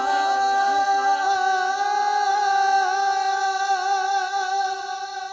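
A cappella naat singing: male voices holding one long, steady note with no instruments, growing a little quieter near the end.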